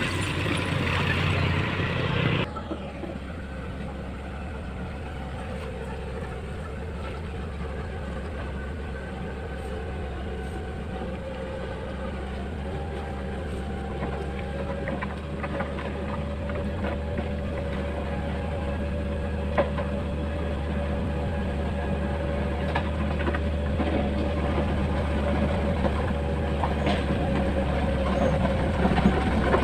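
Motor grader's diesel engine running steadily under working load, with a mid-pitched whine over a low engine hum. A louder, harsher stretch ends suddenly about two and a half seconds in, and the sound then slowly grows louder.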